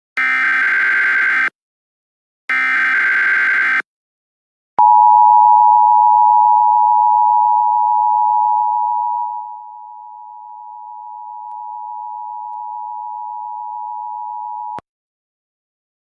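Emergency Alert System tones. First come two bursts of digital SAME header data, each just over a second long. Then the two-tone EAS attention signal sounds steadily for about ten seconds, dropping in level about halfway through and cutting off suddenly.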